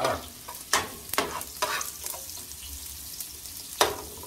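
Chopped onion sizzling in hot oil in a steel paella pan, with a long-handled metal spoon scraping and knocking against the pan several times as it is stirred.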